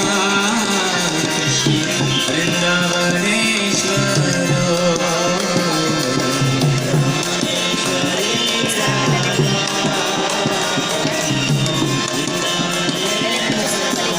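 Devotional kirtan music: voices singing over a hand drum and percussion, running steadily.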